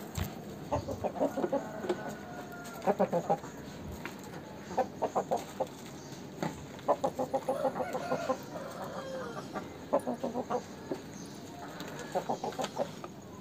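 Aseel chickens clucking in short rapid runs, a cluster of quick clucks every second or two.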